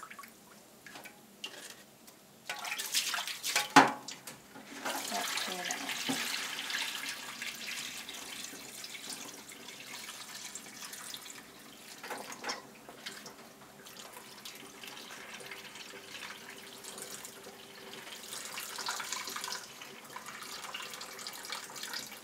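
Water running and splashing as soaked split soybeans are rinsed by hand in a stainless steel bowl in a sink, until the rinse water runs clear. A sharp knock about four seconds in is the loudest sound; after it the water runs steadily, with rougher splashes now and then.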